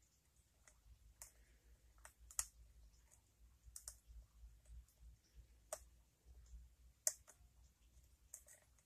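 Lock pick working the pins inside a pin-tumbler challenge lock: faint, irregular metallic clicks and taps, the loudest about two and a half and seven seconds in.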